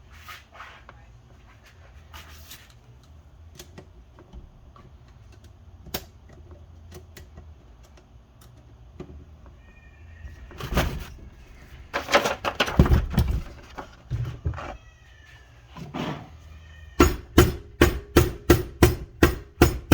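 Clattering metal parts, then a quick run of sharp taps on the Honda Civic transmission case, about four or five a second, over the last three seconds, driving a part down to seat it. A few short high-pitched cries come earlier.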